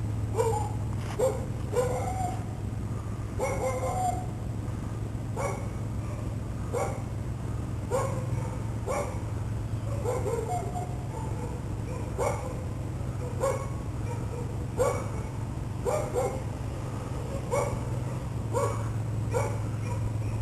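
A dog barking over and over, about once a second at uneven spacing, with a steady low hum underneath.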